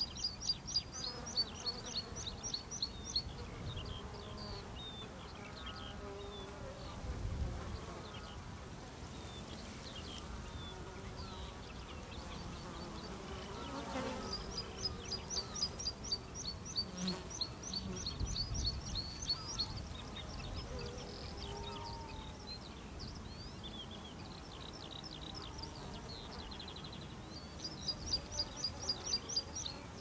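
Moorland in early summer: a small songbird's song, a quick run of high, evenly repeated notes lasting a few seconds, comes three times over scattered chirps. Insects buzz underneath.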